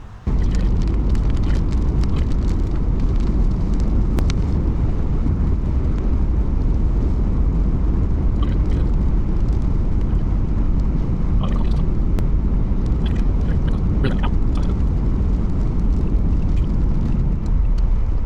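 Loud, steady low rumble of a car driving, wind and road noise, with scattered sharp ticks. The rumble starts abruptly right at the beginning.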